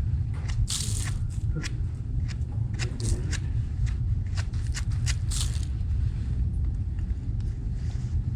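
Wind rumbling on the microphone, with a run of small clicks and scrapes and two short hisses over the first five or so seconds.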